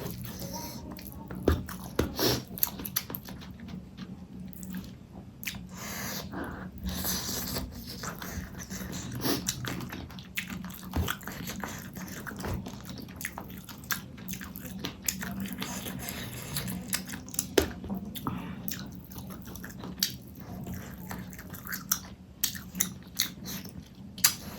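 Close-miked chewing and biting while eating fish curry with rice, with many short sharp smacks and clicks throughout.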